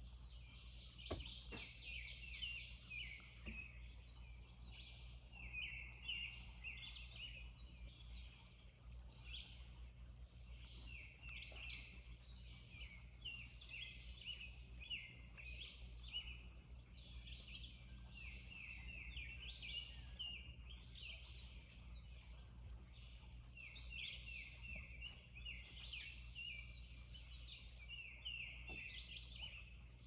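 Many birds chirping and calling at once in a dense, unbroken chorus of short, overlapping high calls, over a faint steady low hum.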